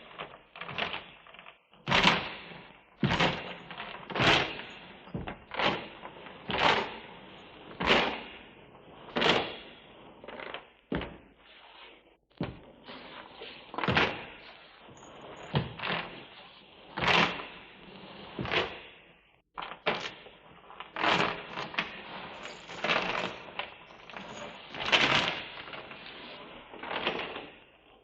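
A recorded sound effect of knocks and clattering impacts, coming irregularly about once a second, each with a short ringing tail.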